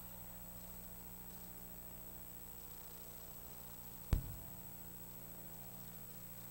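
Steady low electrical hum, with a single sharp thump a little after four seconds in that rings briefly.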